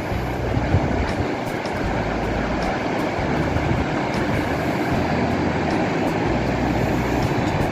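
Steady rushing roar of wind buffeting the microphone, with uneven low rumbles.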